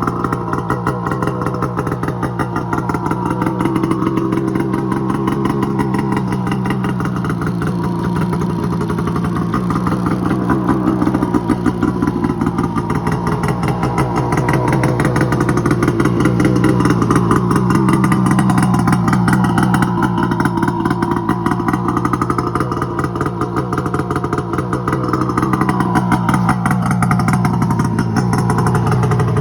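2008 Arctic Cat Crossfire 800R snowmobile's two-stroke twin engine running steadily, its engine speed rising and falling gently a few times.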